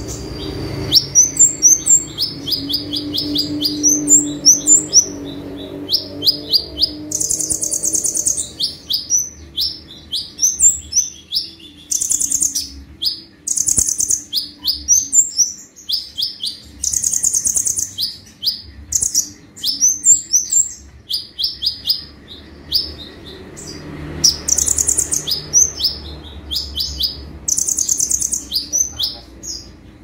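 Caged kolibri ninja sunbird singing: runs of high, very rapid chirps and trilled bursts, one after another with short gaps. These are the fast, sharp 'tembakan' (shooting) phrases that Indonesian bird keepers prize in a konin in full song.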